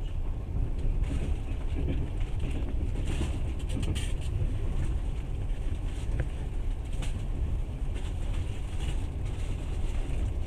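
Passenger train running, heard from inside the carriage: a steady low rumble of wheels on the track, with a few faint short rattles.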